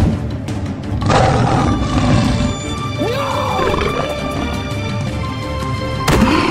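Background music with an animated lion's roars and growls over it. The loudest roar comes near the end.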